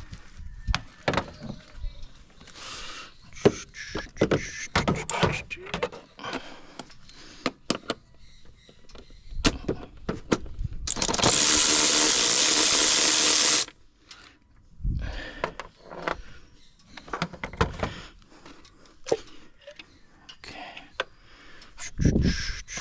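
Tools clicking and knocking against metal, irregularly. Partway through, a power tool runs in one steady burst of nearly three seconds, the loudest sound here.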